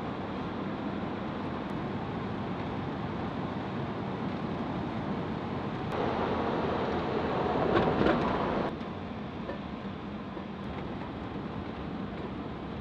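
Steady road and engine noise inside the cab of a camper van driving down a mountain road. About halfway through, a louder rush of wind and road noise comes in for about three seconds, then cuts off suddenly.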